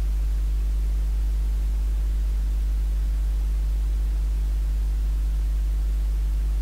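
Steady low electrical mains hum with a few overtones and a faint hiss over it, unchanging throughout.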